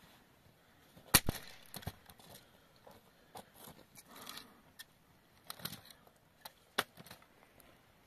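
Several sharp knocks and cracks, the loudest about a second in, with scraping and rustling between them: stones and dry sticks being picked up and knocked together on stony ground.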